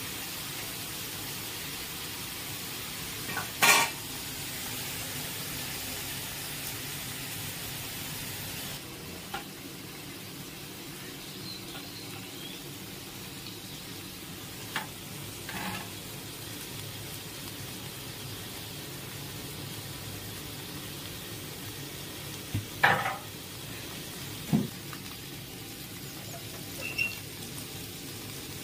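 Small pond fish frying in mustard oil in an iron kadai: a steady sizzle, with a few sharp scrapes and knocks of the spatula against the pan. The loudest of these come near the start and about two-thirds of the way through.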